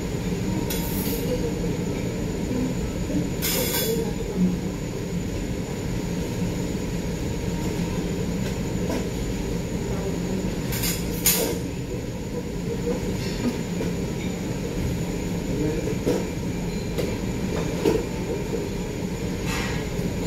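Cooking at a teppanyaki griddle: a steady low rumble, with metal spatulas scraping and clicking on the steel plate a few times.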